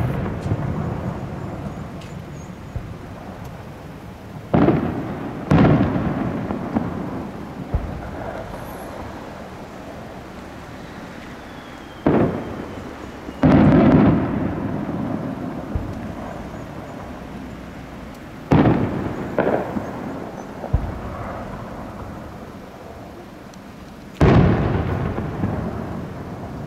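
Fireworks shells bursting overhead: about seven loud booms, mostly in pairs a second or so apart, each followed by a long rolling rumble that dies away.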